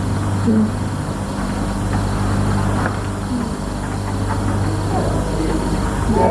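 Steady low electrical hum under an even hiss, with faint short high chirps repeating evenly, about twice a second.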